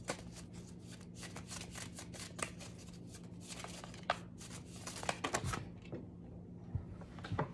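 Tarot cards shuffled overhand by hand: a quick run of soft card flicks and slaps that thins out after about five seconds, with a few louder, duller knocks near the end.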